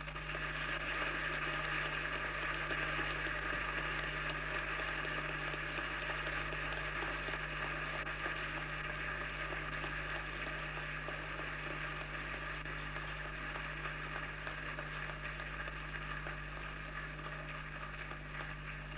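Large crowd applauding and cheering, starting suddenly and slowly dying away, heard through the hiss and steady mains hum of an old recording.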